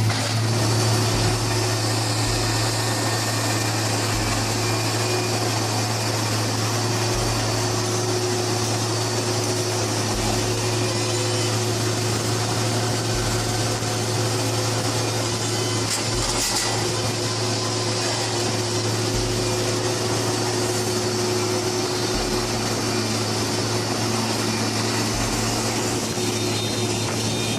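Construction machinery running steadily, with a strong low hum and a deeper throb that comes back every two to three seconds.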